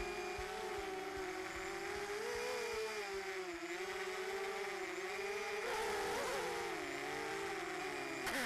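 Motors of a small FPV quadcopter whining in flight, the pitch rising and falling as the throttle changes. A sharp knock comes near the end.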